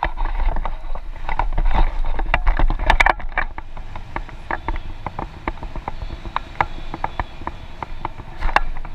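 Wind rushing over the microphone of a paraglider's handheld action camera during the descent, heaviest in the first three seconds or so, with frequent sharp clicks and rattles.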